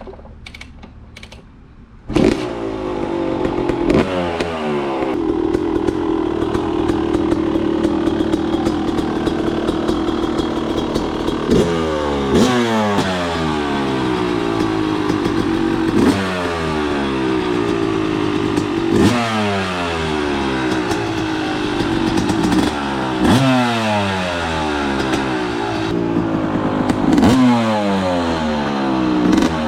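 2024 Yamaha YZ250 single-cylinder two-stroke dirt bike engine starts about two seconds in and idles. It is then blipped on the throttle again and again, revving up sharply and falling back each time.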